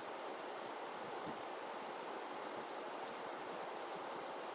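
Steady rush of flowing river water, with short, high chirps repeating over it.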